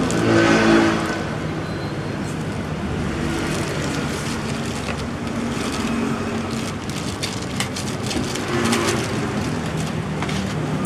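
A steady low motor or traffic hum runs throughout, with faint scrapes and clicks as bait is worked by hand and plastic spoon in a plastic basin.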